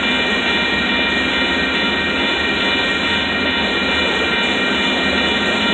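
Covered hopper cars of a freight train rolling past on the main line: a steady rumble of steel wheels on rail, with constant high-pitched tones over it.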